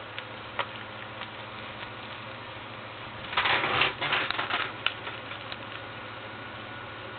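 Handling noise of objects being picked up and moved: a few light clicks and taps, with a louder rustling, scraping burst about three seconds in that lasts about a second and a half, over a steady low hiss.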